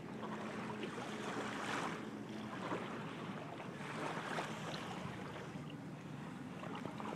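Steady outdoor noise of wind on the microphone, with the low hum of a pickup truck's engine running as it slowly backs an empty boat trailer; the hum is plainest for the first couple of seconds.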